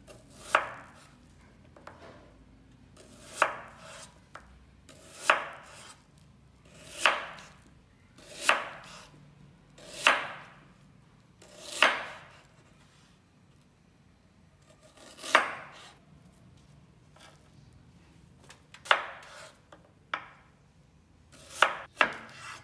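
Chef's knife slicing through a halved onion onto a bamboo cutting board: about eleven slow, separate cuts a second or two apart, each a short sharp stroke, with a longer pause near the middle.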